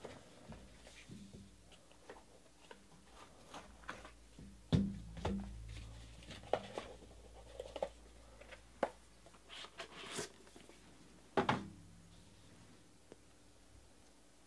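Handling of a trading-card box and the cards inside it: scattered soft rustles, scrapes and clicks, with a louder knock about five seconds in and another about eleven seconds in.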